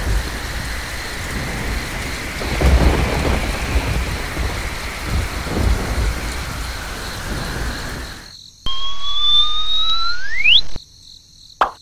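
Heavy rain with low rolls of thunder for about eight seconds, cut off abruptly. It is followed by a steady hiss with two rising whistle tones, one gliding up slowly and one sweeping up sharply, ending suddenly about two seconds later.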